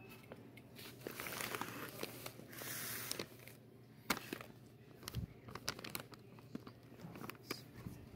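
Plastic bags of chicken feed crinkling as they are handled: two longer rustles in the first few seconds, then scattered crackles and taps.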